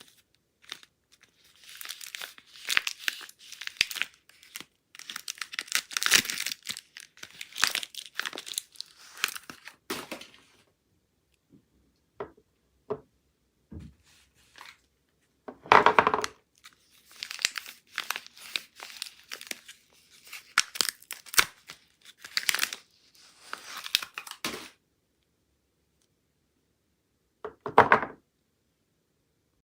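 Soap wrapping being torn open and crinkled by hand, in irregular stretches of crackly rustling broken by a few sharp clicks. The rustling stops for a couple of seconds, then one last short burst comes near the end.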